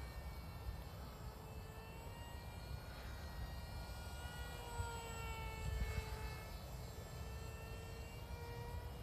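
A tiny 0905 brushless motor spinning a 3030 propeller whines steadily on a small foam RC airplane in flight, its pitch dipping and rising a little. Wind rumbles on the microphone underneath.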